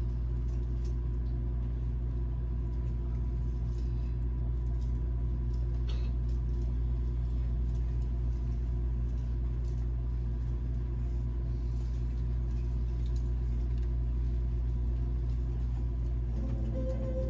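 Steady low rumble and hum of a hall's background noise, with a few faint clicks. The first notes of music come in near the end.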